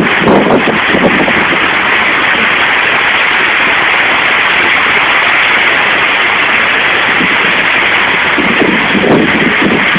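Heavy rain pouring in a storm: a loud, steady rushing hiss with no break. It carries a few short lower surges near the start and near the end.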